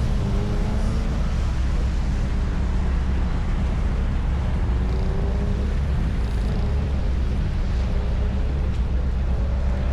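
Car engine running under load, its pitch rising and falling as the car accelerates and lifts, over a steady heavy low rumble.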